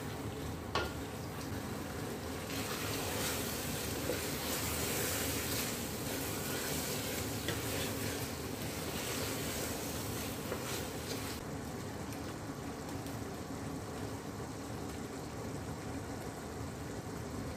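Chicken pieces frying in desi ghee and onion masala in a stainless steel pot, sizzling while stirred with a wooden spoon, with a knock about a second in and a few lighter clicks. The high hiss of the sizzle is strongest in the middle and drops off about two-thirds through, leaving a lower steady bubbling.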